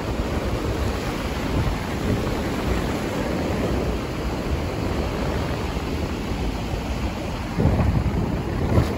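Surf washing up the beach, with wind rumbling on the microphone; the rumble grows louder near the end.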